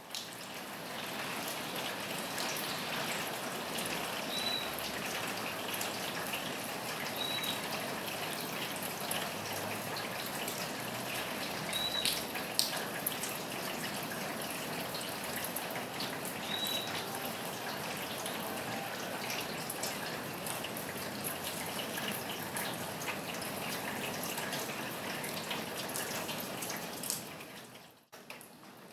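Steady rain falling on a roof, with individual drips tapping through it and a few short high chirps over the top. The sound drops out briefly near the end.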